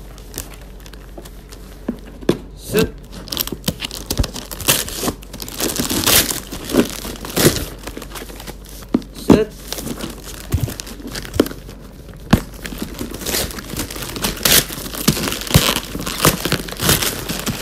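Shiny gift wrapping paper being crinkled and torn open by hand, in irregular rustles and short rips.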